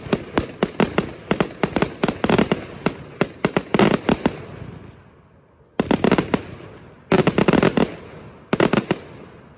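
Aerial fireworks bursting, many sharp bangs in quick succession for about four seconds. After a short lull, three more quick clusters of bangs follow in the second half.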